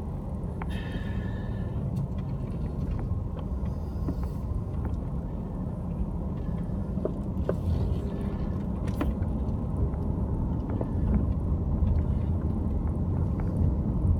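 Steady low rumble of a Mercedes-Benz car driving along a paved road, heard from inside the cabin, with a few faint ticks and rattles scattered through it.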